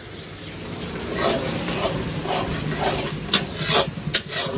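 Sliced onions sizzling in a large kadai, stirred and scraped with a spatula from about a second in, roughly two strokes a second, with a few sharp clinks of the spatula against the pan near the end.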